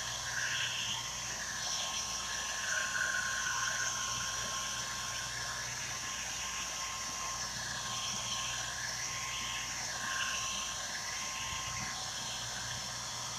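Hand-held hair dryer running steadily, blowing hot air over a damp, freshly wiped chalkboard to dry it, with a constant hiss and a low motor hum.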